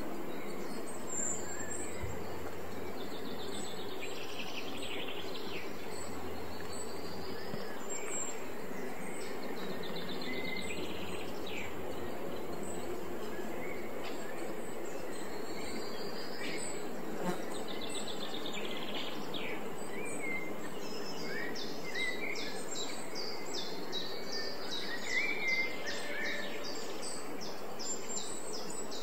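Countryside ambience: many small birds chirping and calling over a steady background hiss, the chirps coming thicker in the second half.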